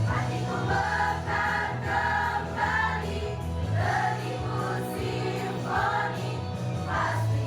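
A choir singing a song, many voices together over a steady, held low bass line.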